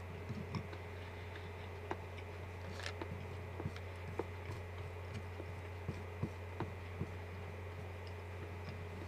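Chewing close to the microphone, with irregular small clicks of wooden chopsticks against a bowl, over a steady low electrical hum.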